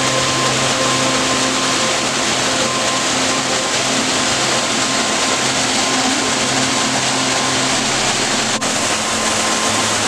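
Small waterfall pouring steadily into a pool: a loud, even rush of falling water, with a very short drop in level about eight and a half seconds in.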